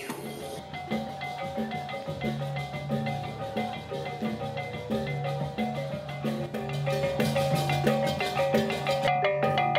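Balinese gamelan: bronze gongs and gong-chimes playing a fast, repeating interlocking pattern over a held low gong tone, growing louder in the second half.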